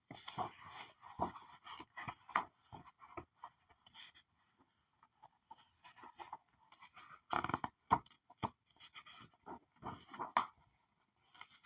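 Paper pages being flipped by hand: irregular rustles and quick flicks of paper, with a denser run of flicks about seven and a half seconds in.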